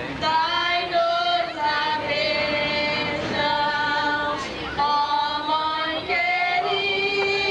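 Voices singing a slow hymn together, women's voices the most prominent, in long held notes that slide from one pitch to the next.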